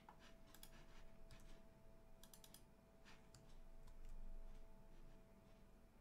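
Faint, scattered clicks of a computer mouse and keyboard keys over near-silent room tone, with a faint steady tone running beneath.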